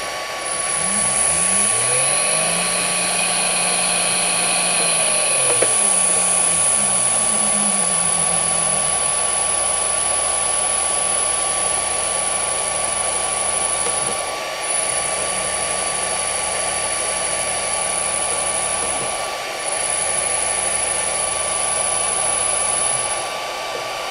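1 hp three-phase induction motor run at low speed by a variable frequency drive, switched from reverse to forward without stopping: its hum slides down in pitch as it slows through zero, then climbs again as it speeds up the other way. It then runs steadily and ramps down to a stop near the end, over the drive's steady cooling fan and high-pitched whine.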